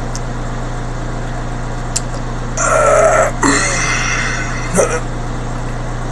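A man's short throaty vocal sound, lasting about a second and a half near the middle, over a steady low hum. There are a couple of faint clicks.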